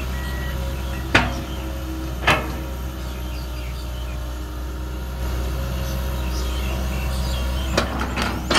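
Komatsu PC200 excavator's diesel engine running steadily while the bucket digs into earth, with sharp knocks about a second and two seconds in and a quick cluster of knocks near the end.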